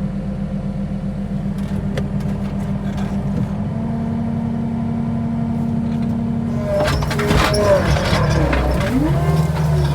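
Skid steer's diesel engine running at a steady speed with a low drone. About seven seconds in, louder wavering, gliding tones join it.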